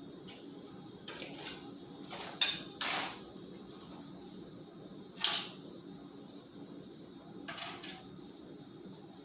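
Metal kitchen utensils clinking and knocking against cookware in a few separate clatters, the loudest with a short ring about two and a half seconds in. A steady low hum runs underneath.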